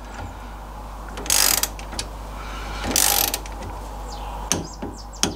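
Ratchet head of a socket wrench being worked on the rear axle's spring-plate nylock nuts: two short bursts of rapid ratchet clicking about a second and a half apart, with a few light metal clicks between.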